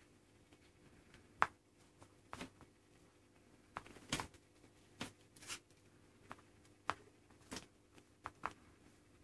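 Faint, irregular light taps and rustles from Maine Coon kittens moving around a fabric play tunnel and a cardboard cat house, about a dozen scattered sounds with the loudest a little over a second in.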